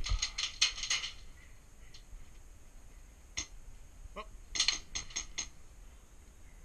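Airsoft gunfire: quick bursts of sharp clicking snaps, a volley in the first second, then single snaps, then another short volley about four and a half seconds in.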